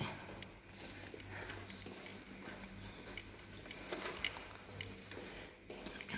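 Faint jingling and clicking of a bunch of keys being carried and handled, with a few sharper clicks about four seconds in, over a steady low hum.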